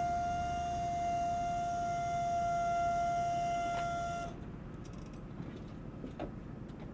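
A steady, high whining tone that cuts off suddenly about four seconds in, followed by quieter background noise.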